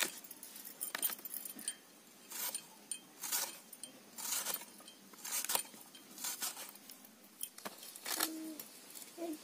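A potato being peeled by scraping it against a curved iron hand blade: short scraping strokes, roughly one a second, with metal bangles clinking along. Near the end a low humming tone begins.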